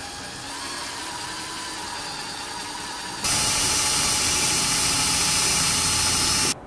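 Bosch electric drill running, drilling into the steel tang of a billhook clamped in a vise: a steady whir, much louder from about three seconds in, then stopping abruptly near the end.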